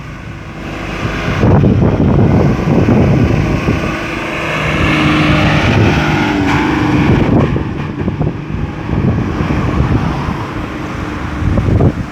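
Road traffic going around a busy roundabout, with cars passing one after another. One vehicle's engine hum stands out from about a third of the way in to past the middle, with some wind buffeting the microphone.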